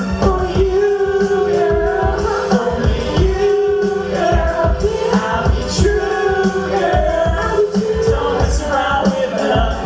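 Hip hop backing track with a steady beat under long held melody notes that carry some singing.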